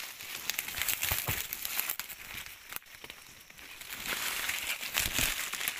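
Close rustling and crinkling with many scattered sharp clicks, quieter around the middle.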